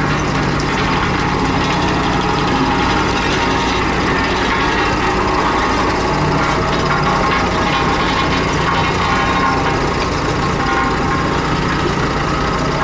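Komatsu D31P crawler bulldozer's diesel engine running steadily under load, with a continuous metallic clatter of its steel tracks and running gear.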